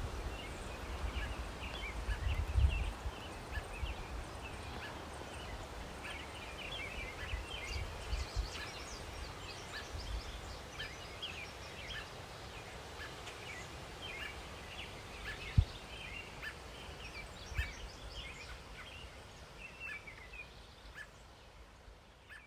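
Outdoor bird chorus: many small birds chirping over a steady background hiss, with low rumbles and a single thump, fading out near the end.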